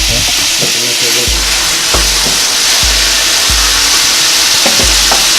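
Seasoned chicken breast pieces sizzling in hot olive oil in a pot, a steady high hiss. Background music with a low beat about every 0.7 seconds plays over it.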